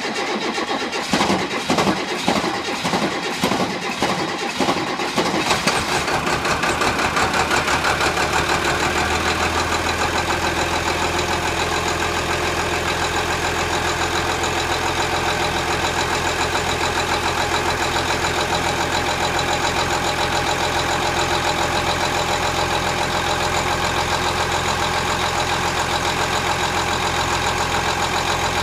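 Rear-mounted Cummins 8.3-litre inline-six diesel of a Blue Bird TC2000 school bus just after a cold start: it runs unevenly with irregular knocks for the first several seconds, then settles into a steady idle.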